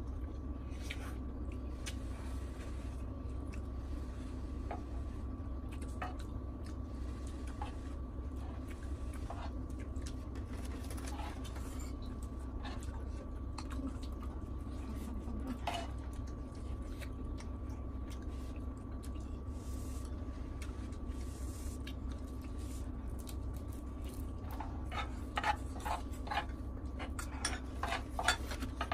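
Spoons scraping and clicking against a griddle pan as food is scooped and stirred, with scattered clicks and a quicker run of louder clicks near the end, over a steady low hum.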